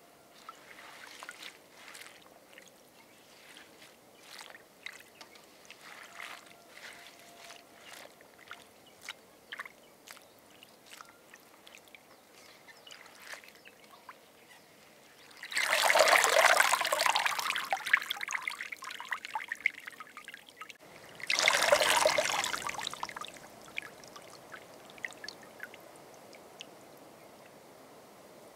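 Hands swishing wild flowers and leaves in a steel bowl of water, with small splashes. About halfway through, then again a few seconds later, handfuls are lifted out and water pours back into the bowl. The second pour is shorter, and faint drips follow.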